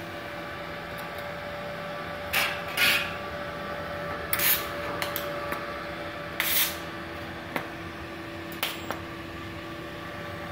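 Steady hum of a MultiPro TIG-200A DC inverter welder switched on and idling, its cooling fan running with two steady tones under it. Several short scraping noises break in, the loudest two pairs about two and a half and six and a half seconds in.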